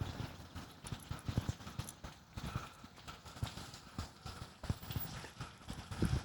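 Footsteps of a person walking: a quick, uneven run of soft thuds.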